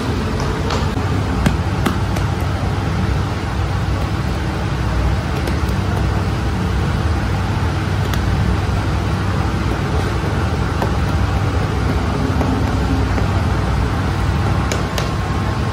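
Steady low rumble of bakery machinery running, with a few faint light taps.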